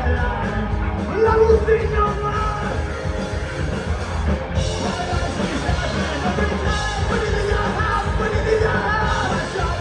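Punk rock band playing live: distorted electric guitars, bass and drums, with a singer's vocals over them.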